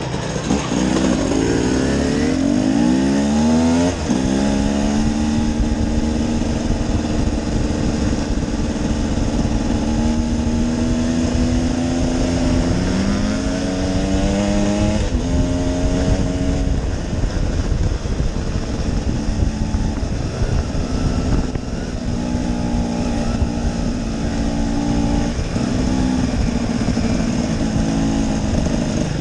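Dirt bike engine pulling away with rising pitch for about four seconds, then dropping sharply, as at a gear change. It then runs at fairly steady riding revs, with several more throttle and gear steps, over steady wind rush on the microphone.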